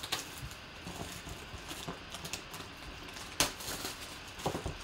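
Plastic shrink wrap crinkling as it is pulled off a cardboard trading-card box, with a sharp snap about three and a half seconds in and a duller knock near the end.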